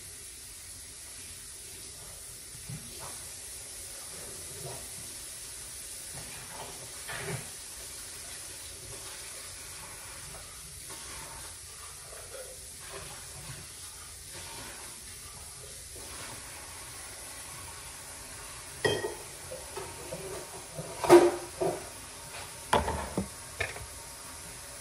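Cups and kitchen utensils being handled on a counter while coffee is fixed: light taps and clicks, then a few louder knocks and clinks near the end, over a steady hiss.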